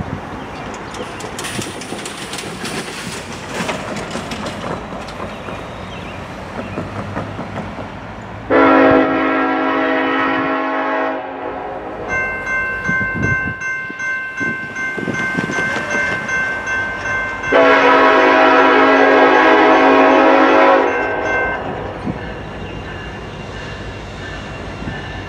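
Norfolk Southern EMD SD70ACE locomotive's air horn sounding two long blasts of about three seconds each for the grade crossing, the second one about six seconds after the first; a thinner steady ringing tone from the crossing signal sounds between and under them. Before the first blast there is a steady rush of road and vehicle noise.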